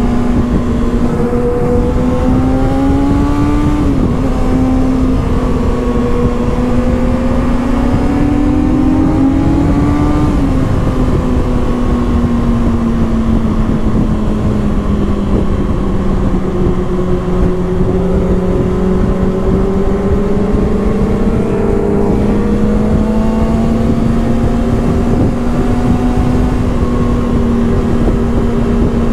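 Kawasaki ZX-6R inline-four engine running at steady cruising revs, its note rising a little twice early on and dipping gently around the middle before settling back. Wind rushes over the microphone underneath.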